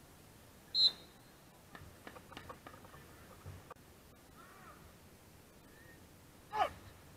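A single short umpire's whistle blast about a second in, consistent with play stopping for a penalty corner, then a few light clicks and, near the end, a brief shout that falls in pitch.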